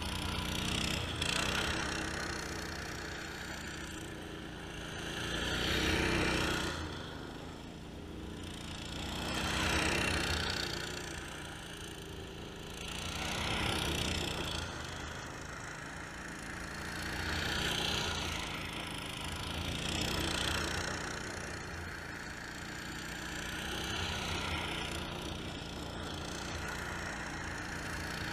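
Go-kart engine running, its sound swelling and fading about every four seconds.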